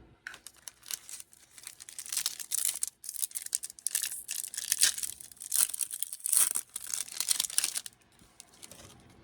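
Foil wrapper of a Pokémon card booster pack being torn open and crinkled, a rapid ragged crackling that builds about a second and a half in and stops about a second before the end.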